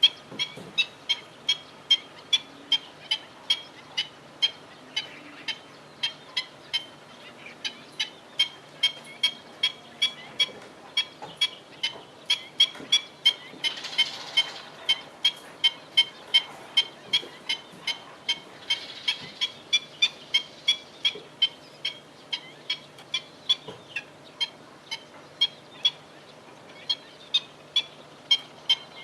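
Black-winged stilt calling: a long, steady series of short, sharp, high-pitched notes, about three a second, with a brief rush of noise about halfway through.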